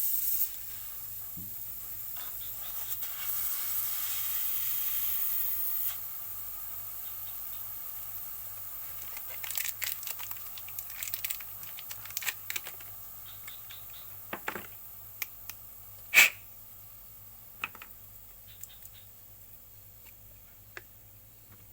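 Pressurised gas hissing steadily from a refrigerator's refrigerant line or valve, fading after about six seconds. Scattered light clicks and taps follow, with one sharp knock about 16 seconds in.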